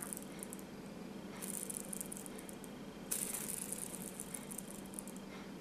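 Homemade fidget spinner on a roller-skate ball bearing, spun by hand twice: each spin gives a fast, light rattling whir from the bearing that fades away. The first spin comes about a second and a half in, the second, a bit louder, about three seconds in.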